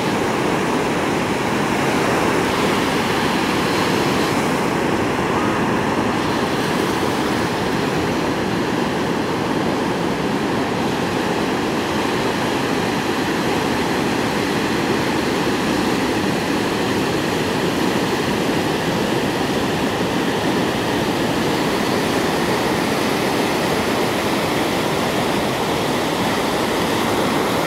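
Pacific surf breaking on a sandy beach: a steady rush of waves.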